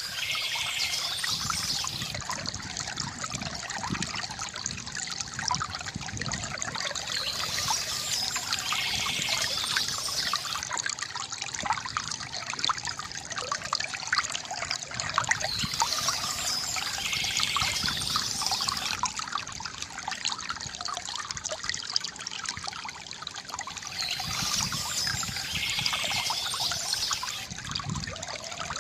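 Water from a bamboo fountain spout trickling and splashing steadily into a pool, with a dense patter of small splashes.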